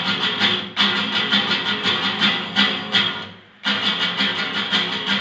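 Acoustic guitar strummed in a quick, steady rhythm, with a brief break about three seconds in before the strumming starts again.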